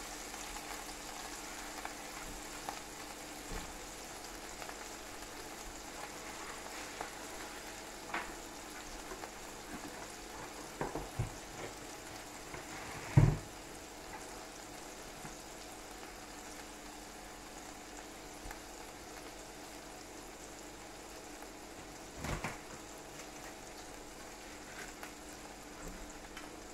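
Slices of coarse rustic pâté frying in oil in a non-stick pan: a steady sizzle, with a few short knocks, the loudest about halfway through.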